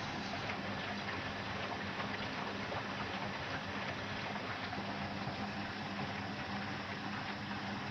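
Zoppas POG 65 X front-loading washing machine running a wash, water and suds sloshing in the drum over a steady hum.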